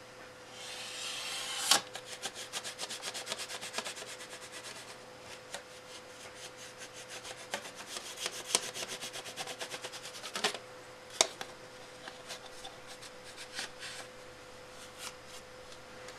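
A small hand tool rubbing and burnishing thin aluminium foil onto a hard model panel, in quick scraping strokes several times a second. The strokes thin out after about ten seconds, with a sharp click about two seconds in and another about eleven seconds in.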